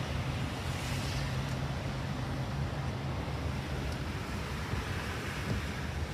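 Steady low rumble and road noise of a car driving.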